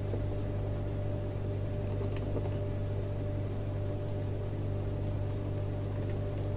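A steady low mechanical hum, with a few faint clicks from wires being handled at the board's terminals.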